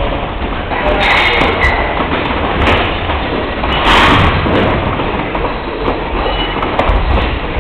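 Continuous loud rumbling noise with a few sharp knocks scattered through it, the loudest about four seconds in: kickboxing sparring, punches and kicks landing on gloves and bodies and feet moving on the ring canvas.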